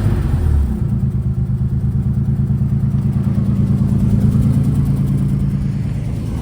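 Nissan 300ZX (Z31) V6 engine dropping back from a rev in the first second, then idling steadily. It runs smoothly with no pops or bangs, the sign that the misfiring caused by its rotted vacuum lines is cured now those lines are deleted and plugged.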